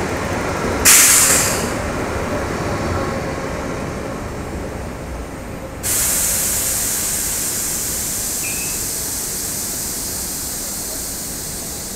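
Renfe Cercanías Series 447 electric multiple unit running out of the station, with a short loud hiss about a second in. About six seconds in, the sound cuts abruptly to a steadier hissing run of another Series 447 departing, with wind buffeting the microphone.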